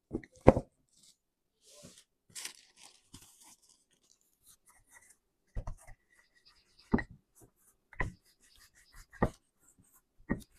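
Wooden rolling pin knocking and bumping on a silicone baking mat as dough is rolled out, the loudest knocks near the start. About two seconds in, plastic wrap crinkles and rustles for a second or so.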